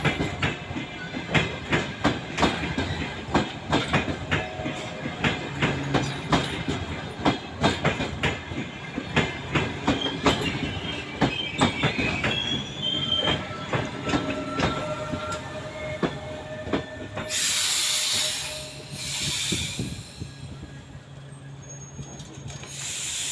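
Passenger train arriving and slowing to a stop: wheels clacking over rail joints, the clicks thinning out as it slows, with brake squeal in the middle. Near the end come loud bursts of compressed-air hiss from the brakes as the train halts.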